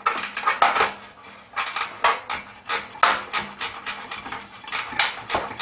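Ratcheting wrench clicking in quick runs of sharp metallic clicks as small bolts are turned in, with a short pause about a second in.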